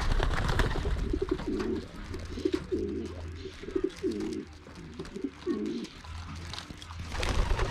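Young racing pigeons cooing in the loft: a run of short, low coos repeating every half second or so.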